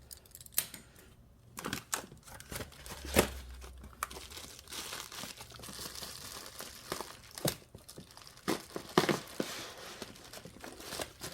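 Packaging being crinkled and torn open by hand, a steady rustle broken by sharp crackles and snaps.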